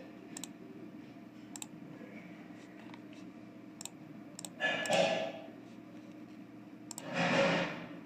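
Computer mouse clicking, about six sharp single clicks spread out with pauses between them. Two louder soft rushes of noise, each under a second, come about five and seven seconds in.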